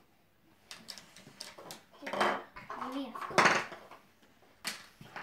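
Plastic play-dough cutters and toy tools tapping and clattering on a tabletop in a string of separate clicks, with a couple of louder knocks partway through. Children's voices come in briefly.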